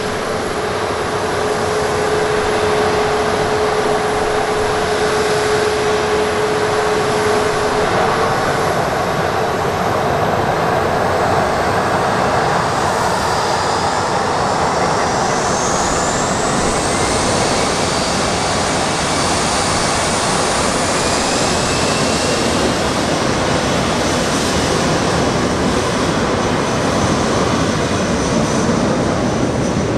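Boeing 737-300's CFM56-3 turbofan engines running at taxi power, a steady hum and roar. About halfway through, thin rising whines come in as the engines spool up for takeoff.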